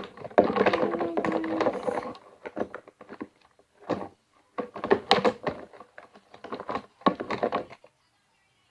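Objects being handled and set down, with repeated knocks and thunks and rustling clatter in several clumps.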